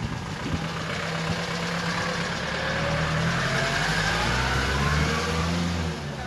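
A motor vehicle engine running steadily, with a whine that rises slowly in pitch. It grows louder until about five seconds in, then falls away shortly before the end.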